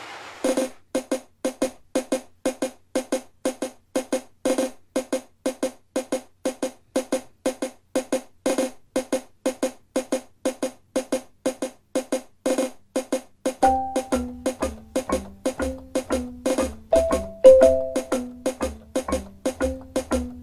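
Music: a quick, even pulse of short, woody percussive notes. About two-thirds of the way in, a low bass part and a moving melody join the pulse.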